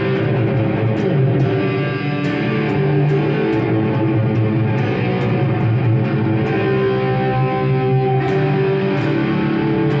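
Electric guitar played through a Marshall MG100HDFX amplifier's overdrive channel with delay and reverb, a continuous line of notes ringing on with added sustain, with longer held notes in the second half.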